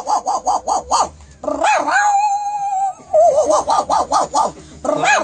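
A man imitating a dog with his voice: quick runs of yips, about six a second, with one long held whine in the middle.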